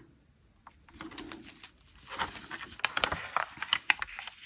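Hands handling a paper colour chart and small plastic bags of diamond-painting drills: light rustling with a quick run of small clicks and taps, starting about a second in.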